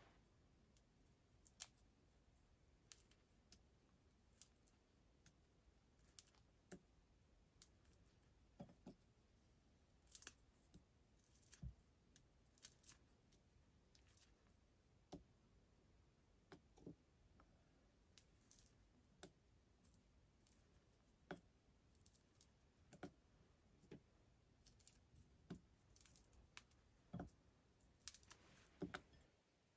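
Dried mandarin orange pieces being torn apart by hand: faint, irregular crisp ticks and snaps.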